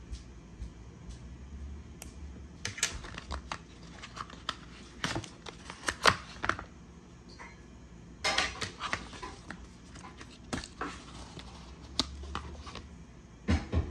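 Handling noise from unboxing an Apple Watch Ultra Ocean Band: clicks and taps from the band's metal loop and the band rubbing and scraping against the cardboard packaging tray, in several short clusters with the sharpest click about six seconds in.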